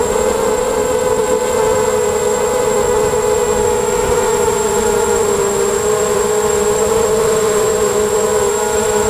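ZMR250 mini H quadcopter's brushless motors and propellers whining steadily in flight, heard from on board, the pitch wavering slightly as the throttle changes.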